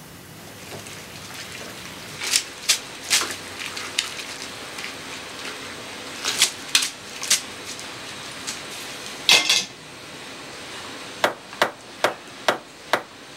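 Kitchen clatter: a few scattered sharp metal knocks of pots and utensils, one louder and ringing, then a cleaver chopping on a cutting board in five quick, even strokes near the end.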